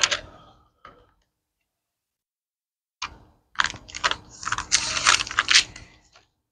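Thin Bible pages being turned and rustled close to the microphone, in a quick run of crisp papery flicks and rustles starting about three seconds in, as the reader pages through to Matthew chapter 5.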